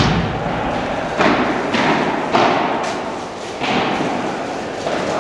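Padel rally: the ball struck by rackets and bouncing on court, about six sharp pops in five seconds, each trailing a long echo of a large hall.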